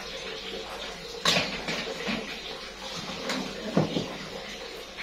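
A few sharp knocks and clatters of a metal baking pan being loaded onto an oven rack and the oven door being shut. The loudest knock comes about a second in, and two lighter ones come a little before the four-second mark.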